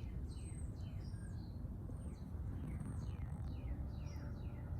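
Small birds chirping: a quick series of short chirps that slide downward in pitch, several a second, over a steady low background rumble.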